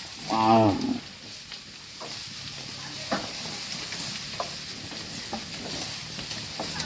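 A cow gives one short, low moo about half a second in, the loudest sound here. After it comes a steady hiss with a few scattered sharp clicks and knocks as the herd moves along.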